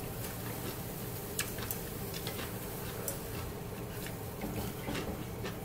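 Quiet kitchen sounds: scattered light clicks and taps of chopsticks and utensils over a steady low background hum.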